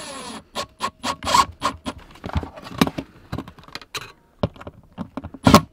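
A handheld drill-driver runs briefly and stops about half a second in, then a scatter of sharp clicks and knocks as the metal electrical box and the drill are handled against the overhead joist.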